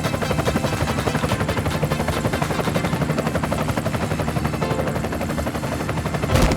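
Helicopter sound, a rapid steady chopping of rotor blades that swells briefly near the end.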